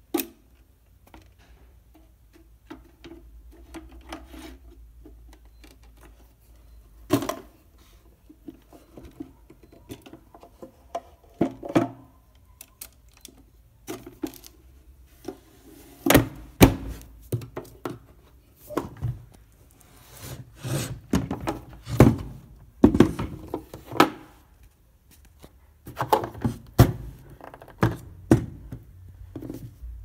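Olympia SM2 portable typewriter's hard carrying case being closed and latched: irregular thunks, knocks and clicks of the lid, latches and handle, few in the first half and many in quick succession over the second half.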